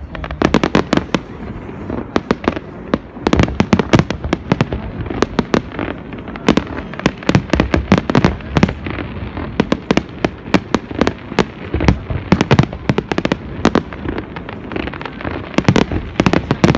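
New Year fireworks display bursting overhead: rapid, continuous bangs and crackling salvos, with louder booms in clusters several times a second.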